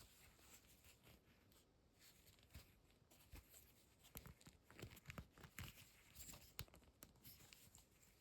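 Faint handling of action-figure packaging: scattered small clicks and taps with soft rustling and crinkling of plastic and cardboard.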